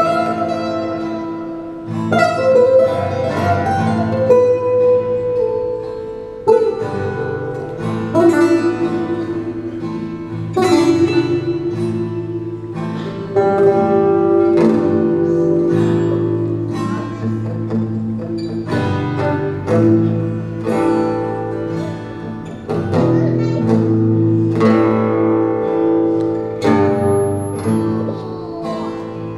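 Two acoustic guitars playing an instrumental folk passage live, picked notes and chords struck about every second or two and left to ring.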